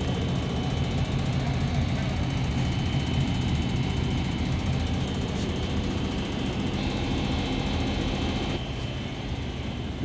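Steady hum of running HVAC plant machinery, with low droning tones and a faint high whine. The higher part of the hum eases off near the end.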